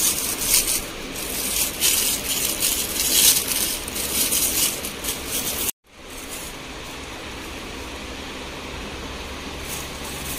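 Rustling and rattling handling noise that comes and goes for about six seconds, then breaks off suddenly. After that comes a steadier, quieter background hum.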